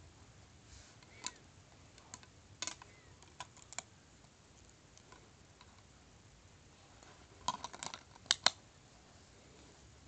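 LEGO plates clicking against each other and snapping together as they are handled and pressed on: a few scattered sharp clicks in the first four seconds, then a quick cluster of louder clicks about seven and a half to eight and a half seconds in.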